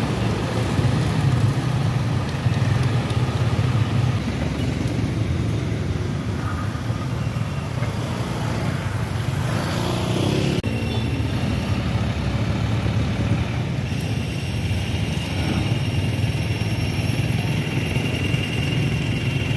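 Motor vehicle engines running steadily, a low even hum, with a passing vehicle swelling up around the middle and then cutting off suddenly.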